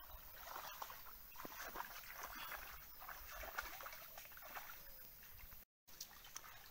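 Shallow water splashing and sloshing around a person wading with a wet cast net, in many small irregular splashes and drips. The sound cuts out for a moment near the end.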